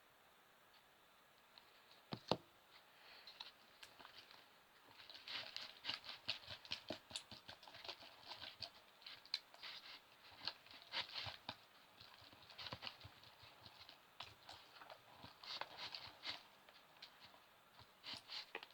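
Homemade slime of glue and Perwoll detergent being stirred and worked, making faint, irregular sticky clicks and crackles. There is one sharper knock about two seconds in.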